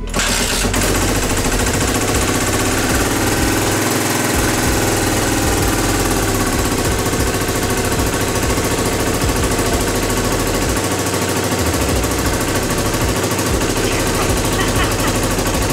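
Suzuki DR250SH's air-cooled four-stroke single-cylinder engine catching right at the start and then idling steadily with a rapid popping beat. The engine is freshly restored after about 30 years and has just had its idle screw turned down.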